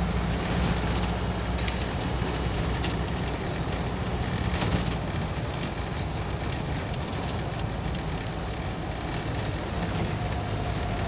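Early-bay VW T2 campervan's air-cooled flat-four engine running steadily under way, heard from inside the cabin with road noise and a few small rattles.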